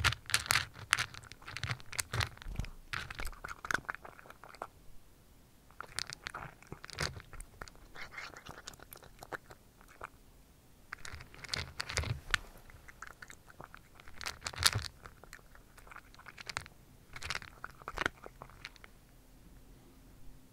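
A cat crunching and chewing dry kibble, close-miked. The sharp crunches come in bouts a few seconds long, with brief pauses between.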